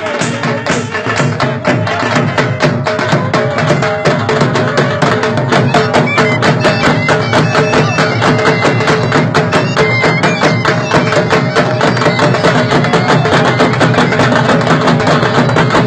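Several dhols beaten with sticks in a fast, dense, driving rhythm, with a surna (shawm) holding a steady reedy melody over the drums.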